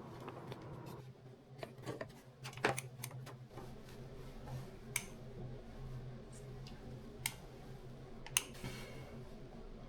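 Scattered light clicks and taps of plastic hose fittings and a clamp being handled, over a low steady hum.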